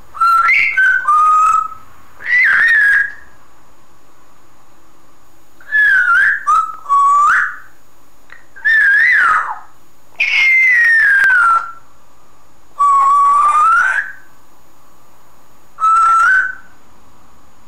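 Congo African grey parrot whistling: a run of loud short whistled phrases that slide up and down in pitch, separated by short pauses, with one longer falling whistle about halfway through.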